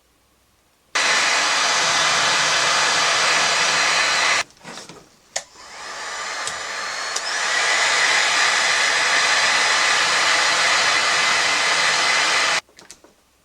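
Electric hot-air blower of the hair-dryer kind running. It switches on about a second in, cuts off after a few seconds, comes back and builds up over a couple of seconds, then runs steadily until it switches off abruptly near the end.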